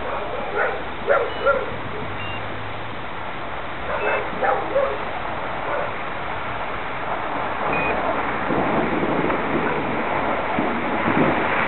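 Dogs barking in short bursts over steady background noise: a few barks in the first two seconds, another cluster about four seconds in, and more in the later part.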